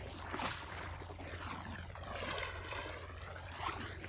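Legs wading through shallow, muddy floodwater: steady swishing and sloshing of water with a few small splashes.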